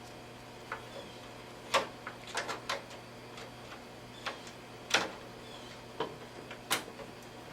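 Scattered light clicks and taps, a dozen or so at irregular intervals, from a computer power-supply cable and its plastic connector being handled and plugged into the motherboard's main power socket.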